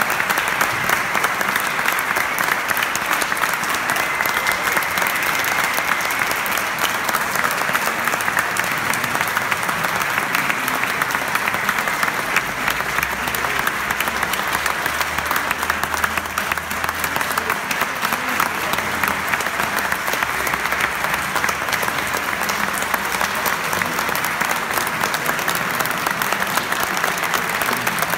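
Audience giving an ovation: many people clapping together in steady, dense applause.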